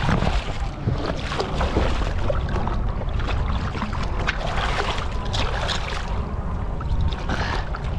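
Striped bass thrashing at the surface right beside the boat, its tail and body splashing the water in a run of short irregular splashes. A steady low rumble of wind on the microphone runs underneath.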